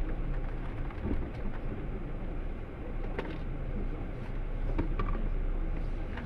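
Jeep engine running at low revs as the vehicle crawls over a rutted mud track, with a few short knocks about three, five and six seconds in.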